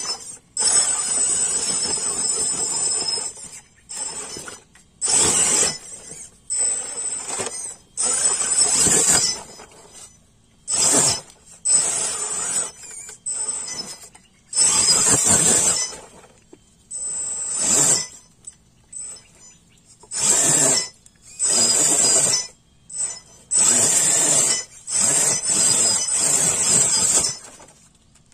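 Electric drive motor and gearbox of an RC rock crawler whining in a dozen or so stop-start bursts of throttle as it climbs over rock, each burst carrying a steady high-pitched whine, with short quiet pauses between.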